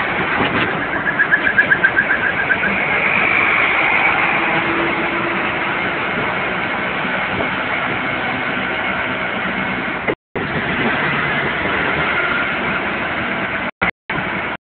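Auto-rickshaw engine and road noise heard from inside the open cabin while riding through traffic, with a rapidly pulsing high tone about a second in. The sound drops out briefly twice, about ten seconds in and near the end.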